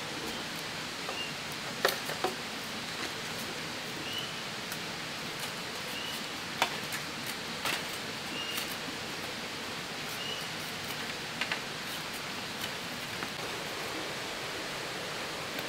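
Sharp cracks and clicks of a blade splitting and trimming bamboo strips, a few seconds apart, over a steady hiss of forest background. A bird repeats a short chirp throughout.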